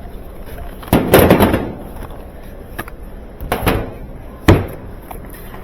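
Knocks and clatter of objects being handled and set down: a loud thump with a brief rattle about a second in, a smaller knock a little after the middle, and a sharp knock soon after.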